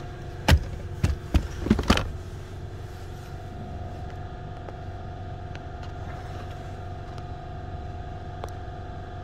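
A handful of sharp knocks and clatters in the first two seconds as a scan tool is handled and set down in the car's footwell, then a steady hum with a constant tone from the 2009 Toyota Corolla running, heard inside the cabin.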